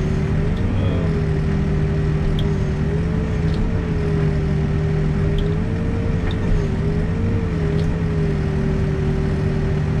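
Backhoe's diesel engine running steadily under the operator's cab, with a whine that rises and dips slightly in pitch as the digging arm is worked into a shallow cut.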